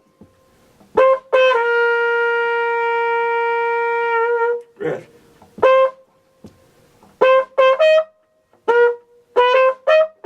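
Flugelhorn playing a band part: two short notes, then one long held note of about three seconds, then a run of short tongued notes, with a few higher notes in the middle of the run.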